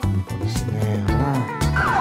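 Background music with a steady bass line. Near the end, a police car siren starts a fast up-and-down yelp.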